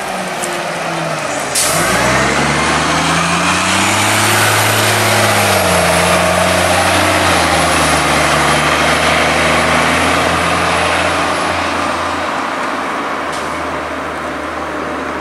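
Orion VII city transit bus accelerating away, its engine note climbing and then dropping at a gear change about five seconds in, with a high whine over it that fades near the end as the bus pulls away.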